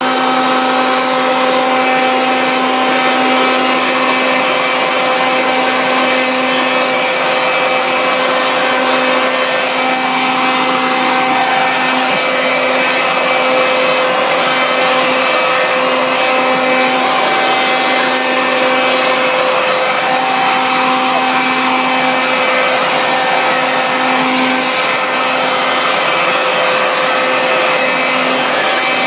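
Toro leaf blower running without letup: a rush of blown air with a steady whine on top.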